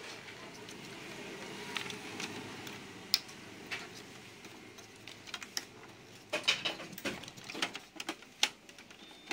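Plastic parts of an HP LaserJet Pro MFP M177fw's gear drive clicking and tapping as they are handled and pressed into place on the printer's metal side plate: irregular sharp clicks, coming thicker in the second half.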